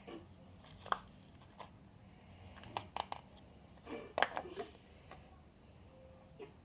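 Light clatter of small utensils and containers being handled while making slime: a few sharp clicks and knocks, the loudest about one, three and four seconds in.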